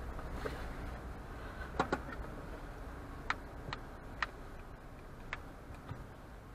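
Low, steady rumble of a car cabin on the move, picked up by a dash cam's microphone, with about six sharp clicks at uneven intervals, two of them close together about two seconds in.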